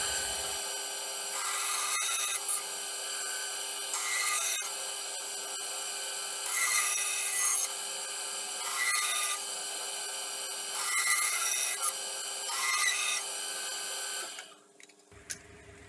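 Benchtop band saw running steadily, with six louder stretches as the blade cuts into a wooden plate. It is switched off near the end and the sound falls away.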